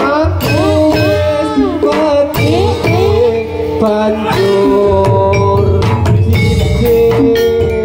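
Live Javanese jathilan trance-dance music: hand drums keep a driving beat under a melody that bends and wavers in pitch, then settles into a long held note about four seconds in.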